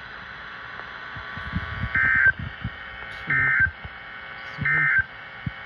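Weather radio sending SAME digital data bursts. Three short data bursts come about a second apart, the end-of-message code closing the previous warning. A longer burst of the same kind starts right at the end, the first header of the next alert.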